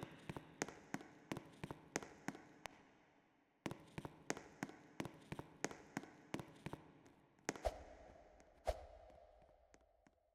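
Faint clicks or taps at about three a second, stopping for about a second before starting again, then two louder knocks about three-quarters of the way through.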